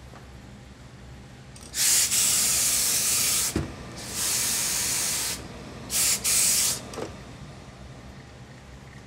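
Tailor's steam iron letting out four bursts of hissing steam onto a suit jacket's hem as it is pressed, two longer bursts then two short ones, with a dull thud between.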